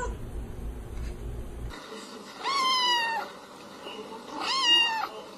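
A kitten meowing twice, two drawn-out high meows about two seconds apart, the second one louder. The first is preceded by a low hum that cuts off abruptly.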